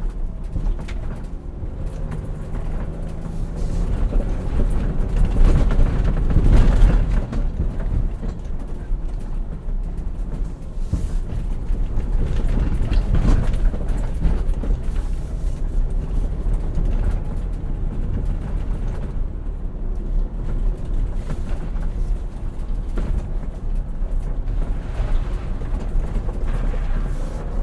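Ford Bronco's 2.7-litre EcoBoost V6 heard from inside the cabin, pulling hard under load over rough off-road ground, with thuds and rattles from the suspension taking hard bumps. The heaviest jolts come about six to seven seconds in and again around thirteen seconds.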